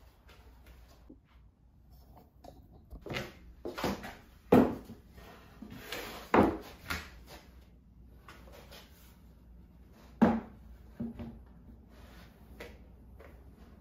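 2x4 lumber knocking and clattering against wood and the floor as a workbench frame and its legs are handled: a run of sharp knocks through the middle, one more loud knock later, and a few softer taps.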